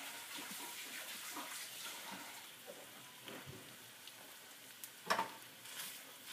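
Kitchen tap running as hands are washed, over the sausage sizzling in hot oil in the skillet; a single sharp knock about five seconds in.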